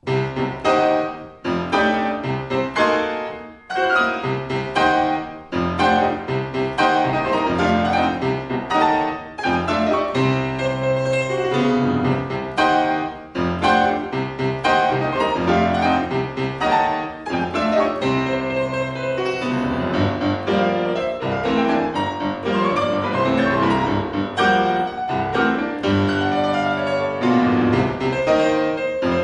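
Steinway D-274 concert grand piano played four hands by two pianists. The music begins abruptly with loud, sharply struck chords, then runs on in busy passages with repeated accented strikes.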